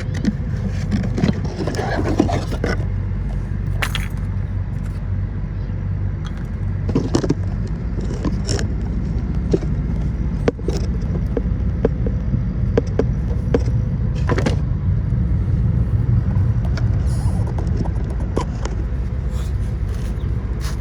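Scattered metallic clicks, scrapes and light knocks as new rear brake pads are fitted into the caliper bracket of a Nissan Rogue, over a steady low hum.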